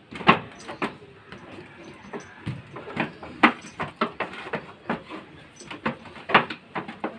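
Goats moving about their pen: irregular clicks and knocks, a few a second.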